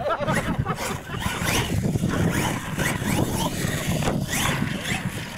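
Radio-controlled monster truck's motor revving up and down again and again, a run of rising and falling whines as it is driven hard on dirt.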